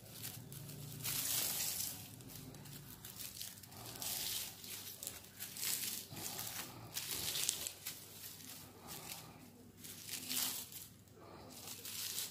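Dry banana-stem fibre and coloured strips crinkling and rustling in the hands as they are twisted and braided into a spinning-top cord, in irregular bursts with quieter gaps between.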